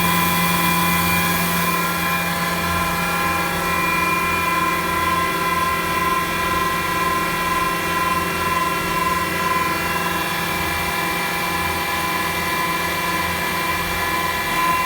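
Star JNC 32 Swiss-type CNC sliding head lathe running under power: a steady machine whine of several held tones over a mechanical hum.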